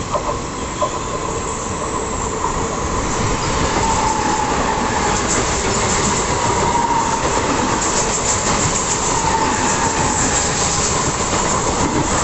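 A Western Railway suburban EMU local train passing close by, growing louder over the first few seconds, with its wheels clattering over the rail joints and a faint wavering squeal. The rumble of a long train of passenger coaches on the farther track runs underneath.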